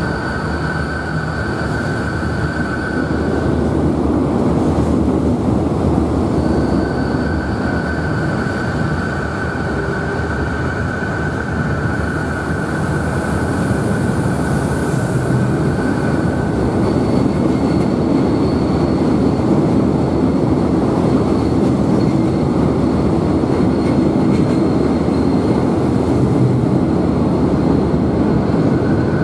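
Renfe Class 449 electric multiple unit, two five-car units coupled, departing and running past with a steady rumble of wheels on rail. A steady high whine drops out briefly early on and then returns.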